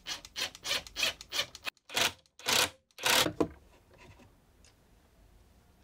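Cordless impact driver sinking a screw into wood in a rapid, uneven series of short bursts, which stop about three and a half seconds in.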